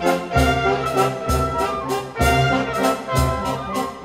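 Brass band playing a waltz, with a heavy bass note at the start of each bar about once a second and lighter chords between.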